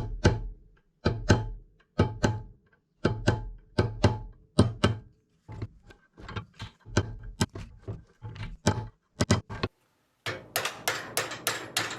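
Hammer striking a punch to peen a steel part so that it tightens up, roughly two sharp metallic blows a second, then a short pause and a quicker run of lighter taps near the end.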